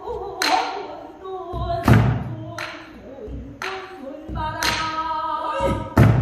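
Pansori singing: a solo voice in the sung style, accompanied by a buk barrel drum struck about five times at uneven intervals, the loudest strokes about two seconds in and near the end.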